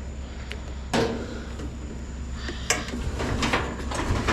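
Knocks and clanks of a heavy piece of scrap being handled: one sharp knock about a second in, another near the middle and a run of smaller clicks toward the end, over a steady low hum.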